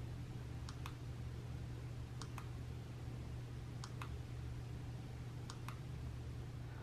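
Small push button on a digital indicator's data transfer cable being pressed and released four times, each press a faint double click, about one and a half seconds apart, each sending a measurement reading to the computer. A steady low hum lies underneath.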